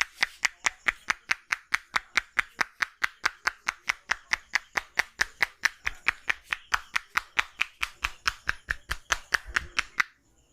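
A barber's hands striking a customer's head in a fast, even rhythm of sharp claps during a head massage, about five a second, stopping abruptly near the end.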